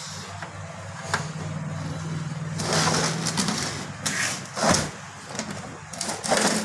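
Hands handling an old portable radio, giving a few short rubbing and scraping noises, over a steady low hum.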